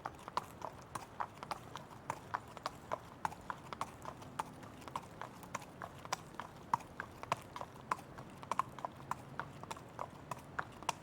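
A horse's hooves in a quick, uneven clip-clop of sharp beats, about four a second.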